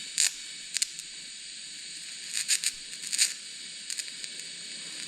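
TIG welding arc on a copper radiator seam: a steady hiss with sharp crackles and pops every so often.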